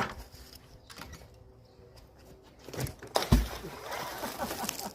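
Small scrap-metal magnet-fishing finds (nails and fasteners) being handled: a sharp metallic click at the start, a thump about three seconds in, then a busy rattling clatter of loose bits for about a second and a half.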